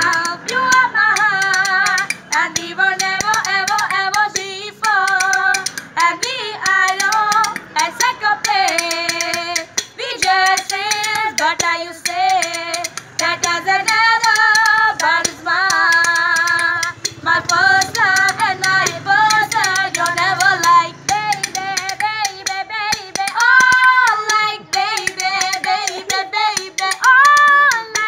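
Two women singing a melody together without instruments, with hand claps or clicks sounding along.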